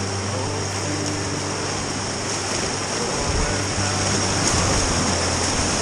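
Whitewater rapids rushing around a packraft as it runs through rocks, a steady hiss of churning water. A low steady tone sits under the water for the first few seconds.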